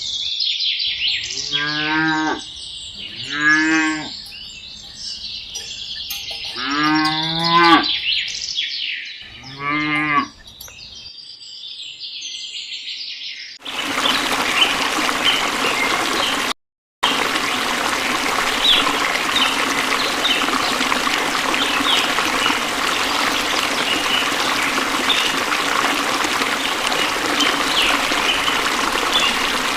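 Cows mooing: four long calls over the first ten seconds or so. About fourteen seconds in, this switches abruptly to a steady rush of running water, which cuts out for a moment a few seconds later.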